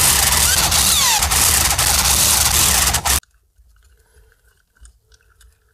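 Power tool running hard on the ring-gear bolts of a car differential, a steady loud rattling din with brief squeaks, cutting off suddenly about three seconds in. Faint clicks of the part being handled follow.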